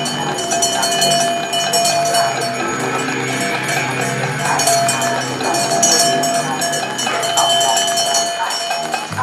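Live music from a small group of musicians, including an electric keyboard, playing continuously with sustained notes.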